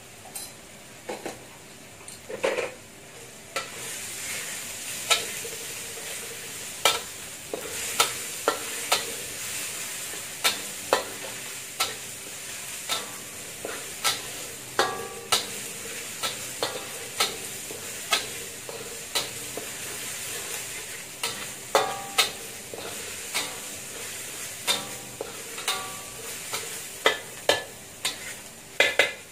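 Minced garlic sizzling in hot oil in a stainless steel wok, getting louder a few seconds in. A metal spatula scrapes and knocks against the wok about once a second as it is stirred.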